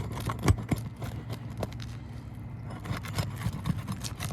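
Asphalt shingles being worked loose by hand and tool: scattered scraping and clicking, with one sharp knock about half a second in, over a steady low hum like a running engine.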